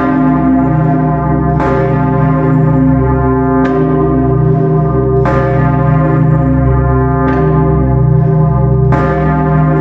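Grassmayr-cast church bells of Bucharest's People's Salvation Cathedral ringing together. Struck about five times, every one and a half to two seconds, over a deep hum that keeps sounding between the strokes.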